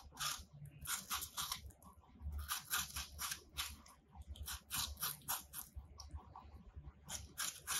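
Two rabbits biting and chewing a fresh apple: crisp crunching in runs of quick bites, broken by short pauses.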